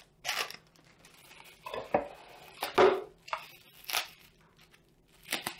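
Packaging being handled while items come out of a cardboard box: a handful of separate rustles, crinkles and light knocks of plastic wrapping and cardboard.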